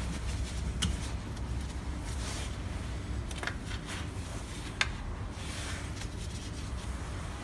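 Handling of small pump parts, with a few sharp clicks and soft rubbing or sliding sounds, the loudest click a little past the middle, over a steady low hum.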